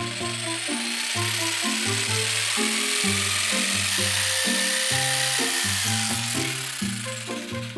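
Background music with a rhythmic bass line, over the steady whine of a power tool running throughout.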